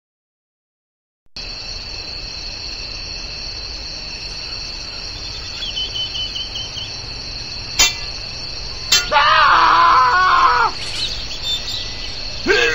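Night-time countryside ambience: a steady high chirring of crickets with a short run of bird chirps, starting after about a second of silence. Two sharp clicks come a little past the middle. Then a louder voice-like sound with a wavering pitch lasts under two seconds, and another short one comes near the end.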